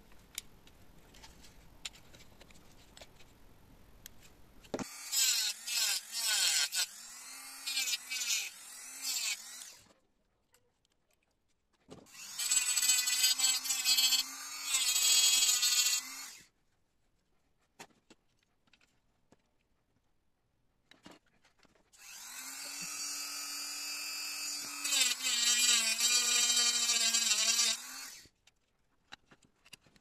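Handheld rotary tool with a thin cut-off disc cutting into the plastic housing of a cordless vacuum cleaner. It runs in three bursts of several seconds each, about five seconds in, twelve seconds in and twenty-two seconds in, and its whine dips and wavers as the disc bites into the plastic.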